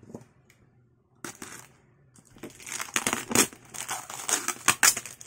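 Clear plastic wrap crinkling and crackling as it is handled and cut away from a cardboard box with a utility knife. A short rustle comes about a second in, then dense crinkling with sharp crackles from about two and a half seconds on.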